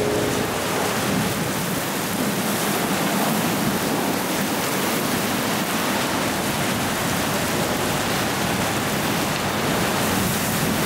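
Heavy wind-driven rain of a tropical cyclone pelting wet asphalt and concrete, a steady, unbroken hiss with the wind.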